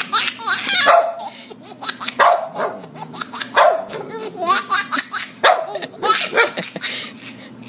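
A dog barking, short single barks repeated roughly once a second, with a baby laughing between the barks.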